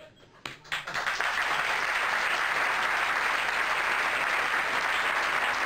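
Audience applauding. The applause breaks out about a second in, after a brief quiet, and then holds steady.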